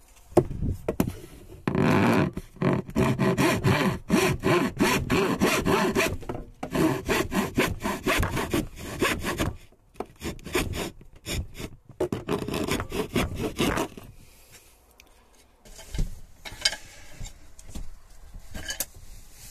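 Hand saw cutting through a light laminated chipboard shelf in fast back-and-forth strokes, with a few short pauses. The sawing stops about three quarters of the way through, leaving only a few faint knocks.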